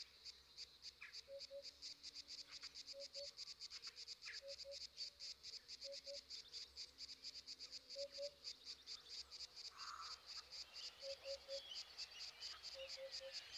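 Faint outdoor ambience of insects chirping in a rapid, even pulse. A low call of two or three quick notes repeats about once a second.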